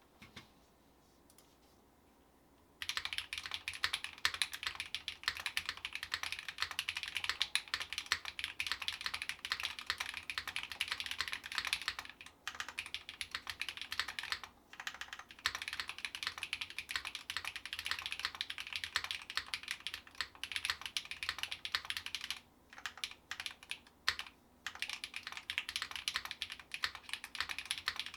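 Fast, continuous typing on a mechanical keyboard with lubed Drop Holy Panda tactile switches on a brass plate, under GMK keycaps. It starts about three seconds in and runs on with a few brief pauses.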